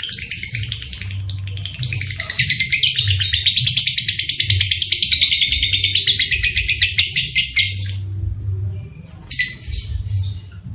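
Lovebird calling: sharp chirps, then a long rapid chattering trill (the 'ngekek' of a lovebird in full song) that runs for about six seconds from about two seconds in and breaks off into a few single calls. A low hum comes and goes underneath.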